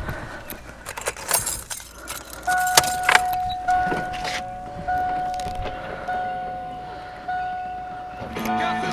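Keys or metal tools rattling and clicking, then a car's electronic warning chime, the 1988 Mustang's by the scene, sounding steadily and restarting about every second and a quarter. Music comes in near the end.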